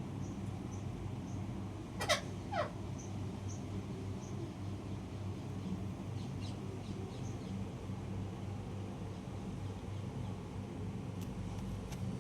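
Pet parrot calling: two quick, sharply falling whistles about two seconds in, with faint short high chirps around them, over a steady low hum.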